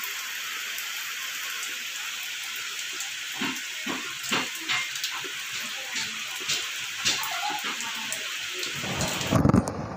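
Steady rain falling on a flooded concrete yard: a constant hiss with louder single drips and splashes scattered through the middle. A low rumble comes in near the end.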